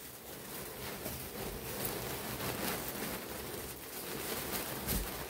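Silk saree fabric rustling as it is handled and folded right against a clip-on microphone, with a low thump near the end.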